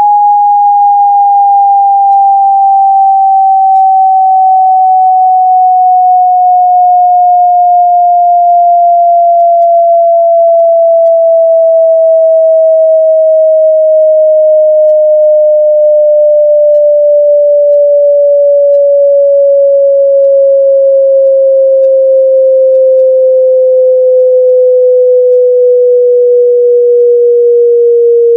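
A single electronic sine tone, loud and steady, sliding slowly and evenly down in pitch to a little over half its starting pitch.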